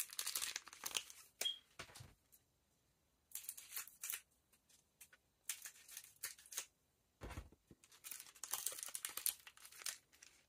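Foil trading-card booster pack wrappers being crinkled and torn open in short, irregular bursts with pauses between them, and one dull thump about seven seconds in.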